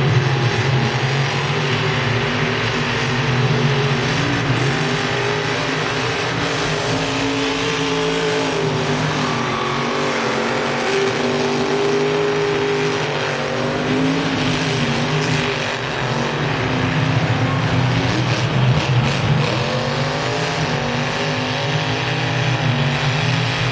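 Grave Digger monster truck's supercharged V8 engine running hard through a freestyle run, revving up and down continuously as it drives through the mud.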